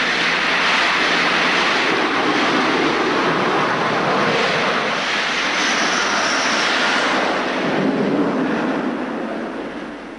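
Su-33 fighter's twin AL-31F turbofan jet engines at takeoff power as it climbs off a carrier's ski-jump: a loud, steady rush of jet noise that fades away over the last second or two.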